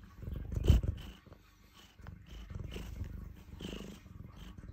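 Domestic cat purring right up against the microphone, in two stretches with a short pause between. About a second in, a loud bump of fur or face against the microphone.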